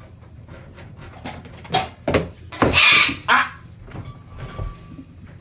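A parrot giving a quick run of loud, harsh squawks, four or so in under two seconds, the longest in the middle of the run.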